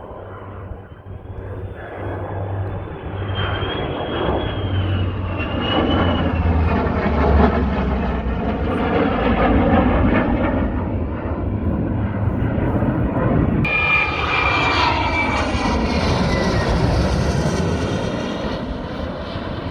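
F-35 fighter jet flying past, its Pratt & Whitney F135 turbofan running: the roar swells over several seconds with a thin, wavering high whine early on. About fourteen seconds in it turns suddenly harsher and brighter, then fades slightly near the end.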